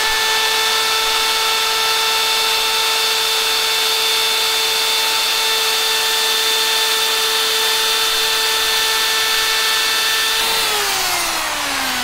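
Handheld router with a small round-over bit running at full speed, a steady high whine with a rasping cut as it rounds over the edge of a wooden cutting board. Near the end it is switched off, and the whine falls steadily as the motor spins down.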